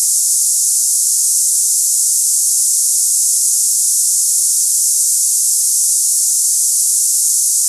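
Tinnitus sample of a cicada-like hiss: a steady, high-pitched hiss with no pulsing or change, sitting in the high treble with no low sound under it. It is played as a match for cicada-type tinnitus.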